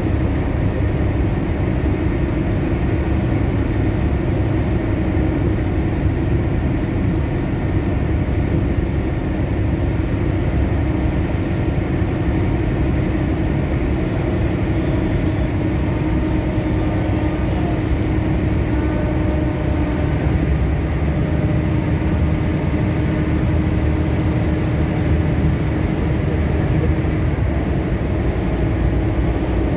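Steady drone of a boat's engine under way, a constant low rumble with a few steady tones, mixed with the rush of water along the hull.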